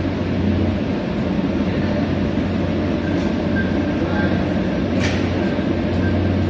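Machinery of an NBR/PVC rubber-plastic insulation production line running steadily: a dense mechanical din with a low hum and a few faint clicks.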